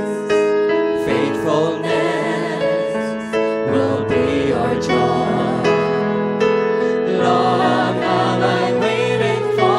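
Slow Christian worship music: voices singing, choir-like, over piano.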